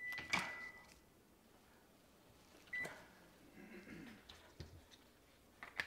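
Electronic kitchen timer beeping, signalling that the cooking time is up: one long steady beep at the start, then a short beep about three seconds later. A few light knocks of utensils at the stove are heard around them.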